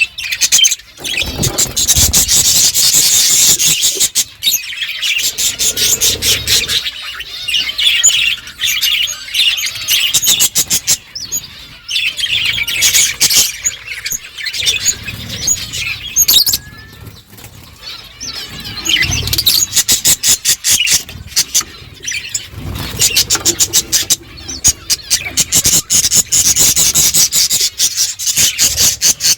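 Budgerigars chirping and chattering in a rapid, busy stream, mixed with many quick clicks of seed being cracked as they eat. It thins out briefly about halfway through, then picks up again.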